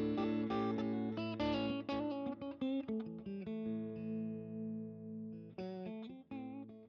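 Background music: a guitar picking quick notes over a steady low note, with a chord left ringing for about two seconds halfway through before the picking resumes.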